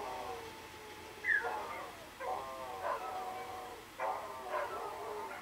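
A dog barking and yipping in a string of short, irregular calls, one of them a falling yelp about a second in.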